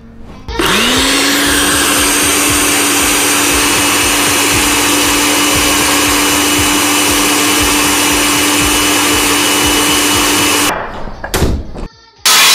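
Electric kitchen mixer grinder running loudly: the motor spins up to a steady whine about half a second in, runs for about ten seconds and cuts off. A few short knocks follow, then another loud burst of noise near the end.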